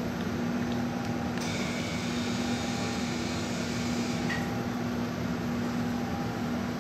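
Steady mechanical hum with a constant low drone. A higher hiss joins from about a second and a half in and stops at about four seconds.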